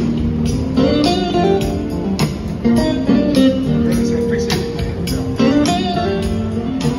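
Electric guitar played live through a small amplifier, moving between chords and single-note melody lines.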